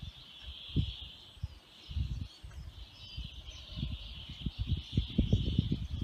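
Outdoor ambience: a steady high-pitched chirring, with irregular low rumbles and bumps of wind and handling on a phone microphone.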